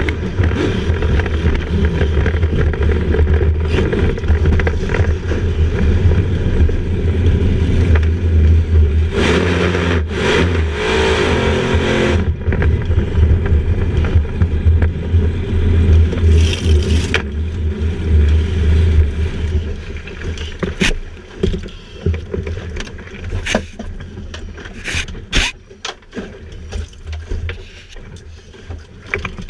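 Racing speedboat's engine running loud, heard from inside the cockpit, with a rush of water-like noise about a third in. About two-thirds of the way through the engine sound dies away as the boat comes to a stop, leaving scattered knocks and clunks.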